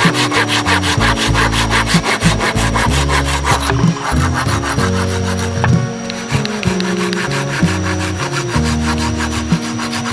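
Fast, even rasping strokes, several a second, like a hand saw or scraper working on wood, with background music underneath.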